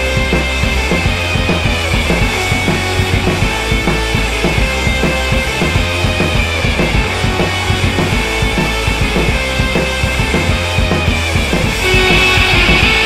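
Background music with a steady drum beat and bass, growing louder near the end.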